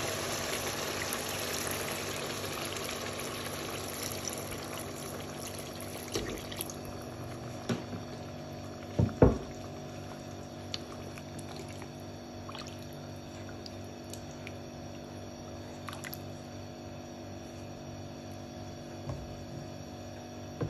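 Water poured from a plastic jug into a pot of chicken and taro masala, adding liquid for the gravy. The pouring trails off about six seconds in, followed by a few knocks, the loudest just after nine seconds.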